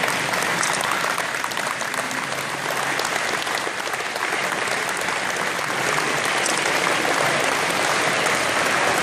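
A crowd applauding, a steady dense clapping that holds at one level throughout.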